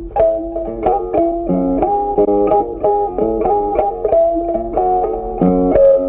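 Background music: a plucked guitar tune played in quick, regular notes.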